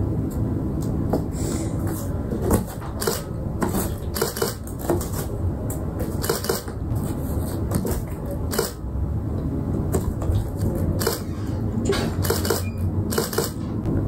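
Irregular clicks and crinkles of cardboard as a cat pushes its head through and paws at a torn hole in a cardboard sheet, over a steady low hum.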